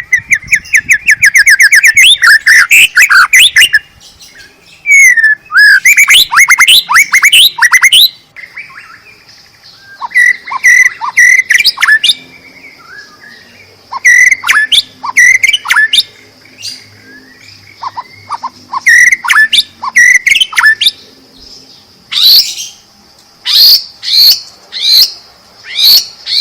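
White-rumped shama (murai batu) singing loud, varied song: a fast trill at first, then repeated bursts of sharp whistled notes with short pauses between them.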